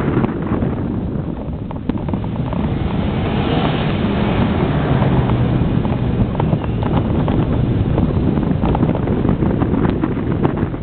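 Truck driving over rough grass ground: a steady low engine rumble with wind buffeting the microphone, and scattered knocks and rattles as it goes over bumps.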